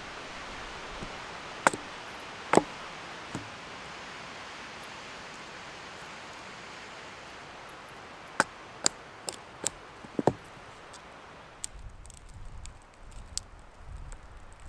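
Wood fire in a Dakota fire pit crackling as it catches: sharp pops and snaps over a steady hiss. The hiss drops away about twelve seconds in, leaving smaller crackles.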